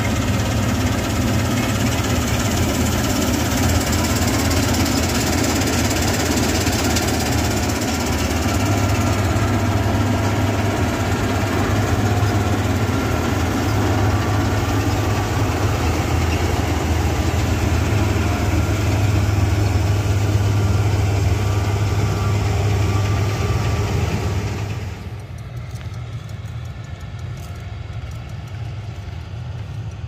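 A combine harvester's diesel engine runs steadily with a strong low hum. About 25 seconds in, the sound drops to a quieter, duller level and keeps running.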